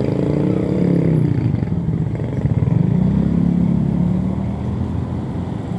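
Small motor scooter engine under the rider. Its pitch drops over the first second as it eases off, then rises and falls again in the middle as it picks up speed and settles.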